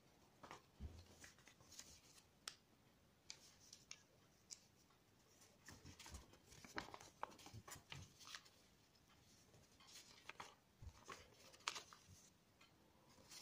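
Faint, scattered rustles and soft clicks of a sheet of coloured origami paper being handled, folded and creased by hand.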